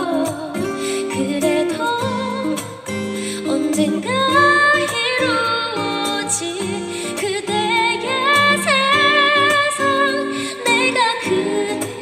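A woman singing a pop ballad into a microphone, holding notes with vibrato, over a strummed acoustic guitar.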